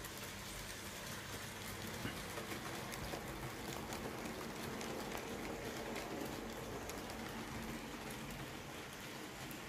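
Model train of tank wagons running along the track, its wheels giving a steady, faint rattle of many fine clicks over the rails, with a low hum underneath.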